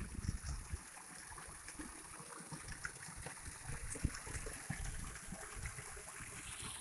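Thin waterfall splashing and trickling down a rock face, a steady watery hiss, with a low rumble of wind on the microphone and a single knock about four seconds in.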